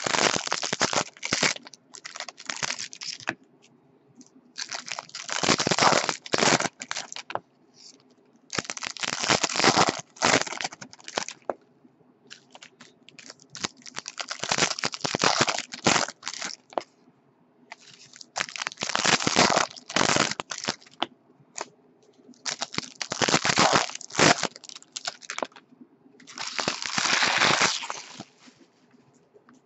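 Foil trading-card pack wrappers being torn open and crinkled, in seven bursts of crackling, each a second or two long, a few seconds apart.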